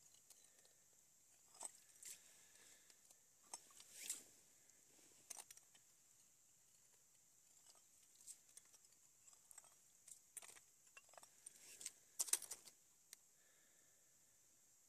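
Faint, scattered clicks, scrapes and rustles of ice-fishing gear being handled at a hole in the ice, with a denser run of scraping clicks about twelve seconds in.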